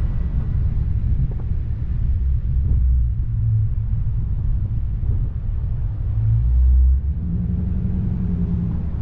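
A car driving slowly through a turn into a parking lot, heard as a continuous low rumble of engine and road and wind noise from a camera mounted outside on the car. The rumble swells louder about six to seven seconds in, and a faint steady hum joins it near the end.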